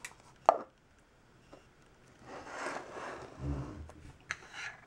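A plastic Play-Doh tub and its dough being handled on a table: a sharp tap about half a second in, then a scraping rustle, a soft thud and a few light clicks.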